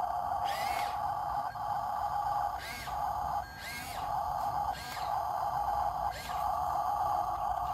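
Small electric motor and gearbox of a radio-controlled scale truck whining steadily. The whine drops out briefly about five times, each time with a short hiss.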